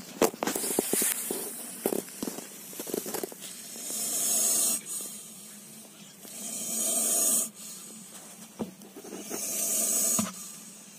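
Baby cobra hissing: four breathy hisses about a second long, roughly every three seconds, each building and then cutting off sharply, the sign of an agitated, defensive snake. A few light knocks come in the first three seconds.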